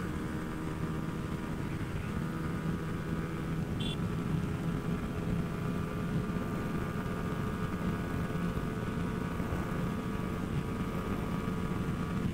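Onboard sound of a Yamaha R15's 155 cc single-cylinder engine running under way at a nearly steady pitch, with wind noise on the microphone.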